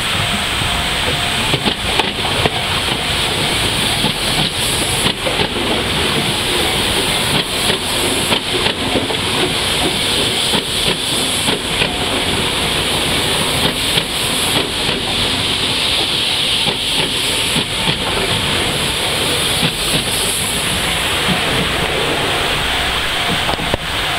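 Fukuoka City Subway 2000 series six-car electric train running slowly past under a speed restriction, its wheels knocking over the rail joints many times over a steady hiss.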